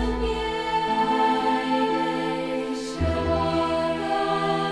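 Background music of long held chords over a deep bass note, the chord changing at the start and again about three seconds in.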